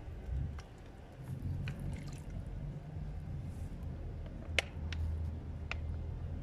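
Dyed water squeezed from plastic bottles onto tied-up cotton shirts, dripping and soaking in softly, with a few sharp clicks.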